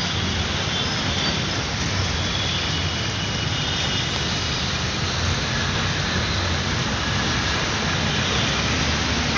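Steady city traffic noise: the engine rumble and road hiss of a slow-moving vehicle among other traffic.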